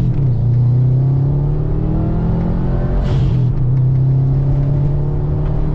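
Turbocharged Subaru WRX flat-four engine pulling hard under acceleration, its pitch rising, heard from inside the car, with the louder intake and turbo noise of an aftermarket intake that has no stock silencer box. A short whoosh of air about three seconds in.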